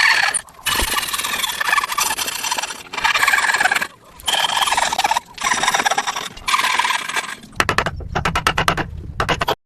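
A hand tool cutting wood in long rasping strokes, each lasting about a second, then a rapid run of short strokes near the end.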